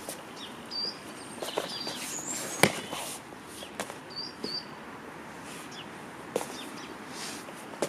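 Small birds chirping on and off, with one sharp slap about two and a half seconds in as a body lands on the foam mat in a breakfall, and a few lighter knocks of feet on the mat.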